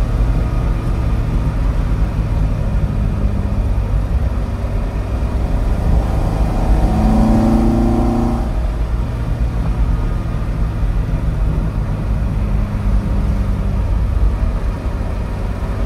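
Alfa Romeo 2000 GTV's 2.0-litre Twin Spark four-cylinder engine, taken from an Alfa 75, pulling the car along the road, heard from inside the cabin as a steady low rumble. The engine note climbs for a moment about seven seconds in, then eases back after eight and a half seconds.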